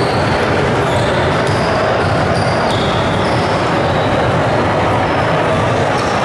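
Basketball bounced on a hardwood gym floor during a free-throw routine, over a steady loud din of background noise.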